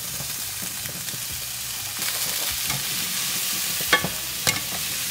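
Squash sizzling in olive oil and garlic in a sauté pan while being stirred; the sizzle grows a little louder about two seconds in. Two sharp clicks of the utensil against the pan come near the end.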